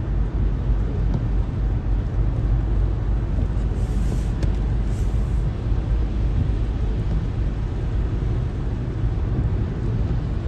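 Steady low rumble of a car driving: engine and tyre noise heard from inside the cabin.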